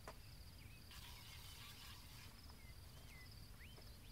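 A faint hiss of pepper spray from a handheld canister, starting about a second in and lasting just over a second. An insect trills steadily in the background, with a few short chirps.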